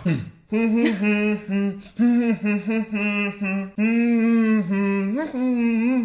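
A person humming a song's melody with closed lips, a string of held notes that step up and down with short breaks, starting about half a second in.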